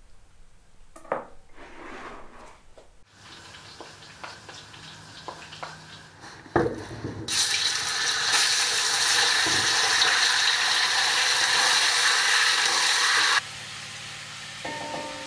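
A few knife chops on a wooden cutting board, then pork chunks dropped into a hot pot and sizzling: a loud, steady sizzle that cuts off suddenly near the end.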